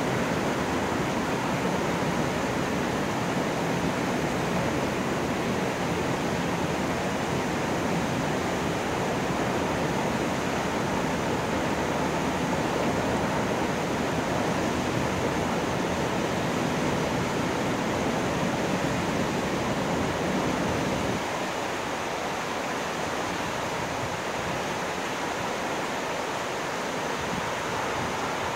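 Water rushing through river sluice gates: a steady, even rush of falling water. About three-quarters of the way through, the deep low part drops away and the sound becomes slightly quieter.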